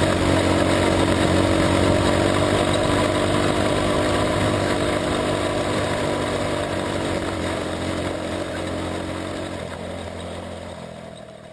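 Jr Sprint car engine running at speed, heard from on board the car, with a steady note that fades away near the end.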